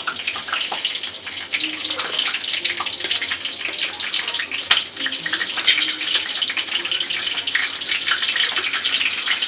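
Bay leaf, cloves, black pepper, cardamom and green chillies sizzling in hot oil in a kadai: a steady hiss with many small crackling pops.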